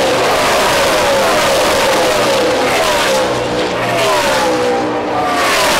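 A pack of NASCAR Cup stock cars' V8 engines passing at full throttle one after another, each engine's pitch dropping as it goes by.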